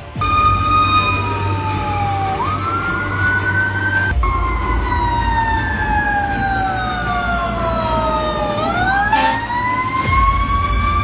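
Fire engine siren wailing, its pitch sliding slowly down and back up several times over a low engine rumble. There is an abrupt cut about four seconds in.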